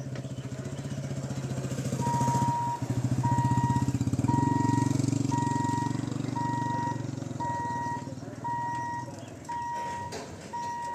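A small vehicle engine running close by with a rapid, even pulse, fading over the last few seconds. From about two seconds in, an electronic warning beep sounds at an even pace of about one a second.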